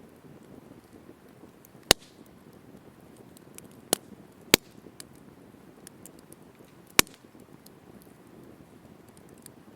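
Wood campfire burning with small crackles and four loud, sharp pops of burning wood.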